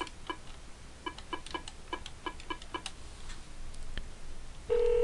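Phone number being dialed on a telephone keypad: a quick run of about ten short keypad beeps, about four a second, right after the dial tone cuts off. Near the end the steady telephone ringback tone starts as the call begins ringing.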